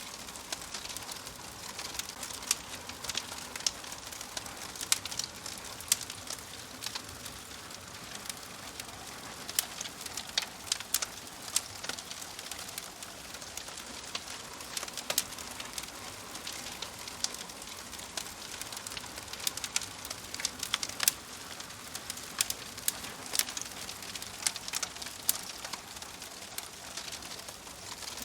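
Log fire crackling in a fireplace: a steady hiss with frequent, irregular sharp pops and snaps from the burning wood.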